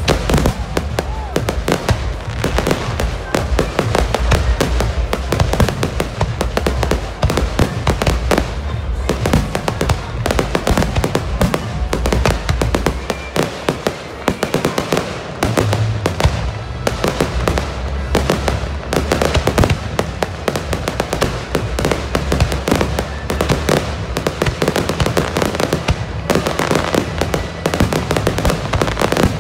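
Aerial fireworks bursting overhead in a continuous barrage, with many sharp reports following each other in quick succession and no pause.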